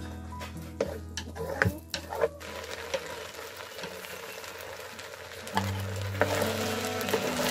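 Chopsticks stirring rice noodles in a pot of simmering broth, with a few sharp clicks against the pot in the first couple of seconds, over a steady hiss from the simmering pot.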